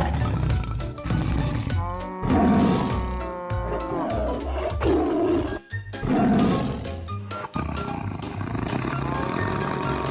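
Upbeat children's dance song with a steady thumping beat and held synth notes, with several roar-like growls over the music about two, five and six seconds in.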